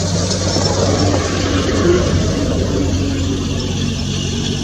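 Open safari jeep's engine running steadily as it drives along, with a continuous hiss of road and wind noise over it.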